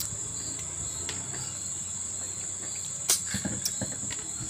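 Crickets trilling in a steady high-pitched drone, with a few sharp clicks of eating on a metal plate a little after three seconds in.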